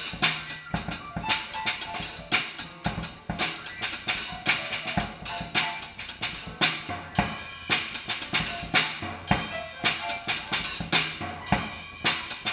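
Music played on a drum kit, with a steady run of kick, snare and cymbal hits and a few held pitched notes alongside.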